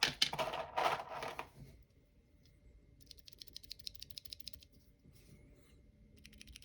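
Loose Cherry MX Brown mechanical keyboard switches being picked up and pressed repeatedly by hand: a rustle and clatter in the first second and a half, then quiet runs of rapid light clicks from the switch stems bottoming out and returning.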